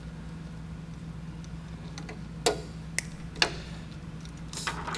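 Needle-nose pliers' wire cutter clicking sharply as it cuts back a wire, three crisp snaps about half a second apart after the halfway point, with a brief scrape of metal near the end.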